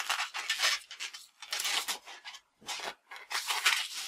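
Green 160 latex modelling balloon being handled and tied off at the neck: a run of short, irregular rubs of fingers on the stretched latex.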